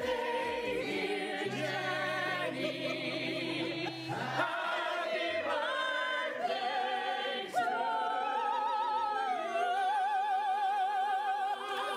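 Several opera-trained voices singing a birthday song together in full operatic style, in harmony with wide vibrato and long held notes, ending on a long sustained note.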